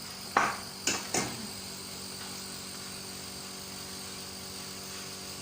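Three short clatters from kitchen work within the first second and a half, as utensils or ingredients hit a bowl, followed by a steady background hum.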